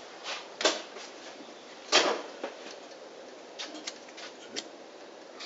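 A scatter of short, sharp clicks and knocks, the loudest about two seconds in, from the model cannon and gear being handled on a wooden bench.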